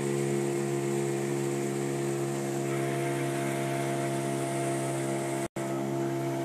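A boat's engine running at a steady, unchanging pitch, with a hiss of water and air over it. The sound cuts out for an instant about five and a half seconds in.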